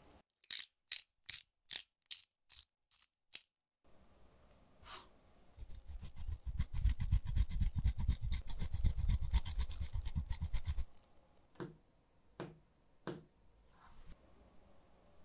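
Seasoning being added over a glass bowl of batter: eight quick, sharp clicks, then about five seconds of loud, fast rasping, then three separate knocks near the end.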